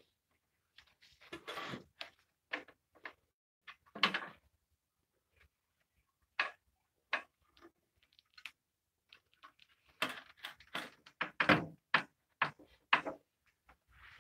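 Scattered knocks, clicks and short scrapes of wooden jig pieces and plywood being handled and set in place on a table saw top, with the saw switched off. The knocks come thicker near the end.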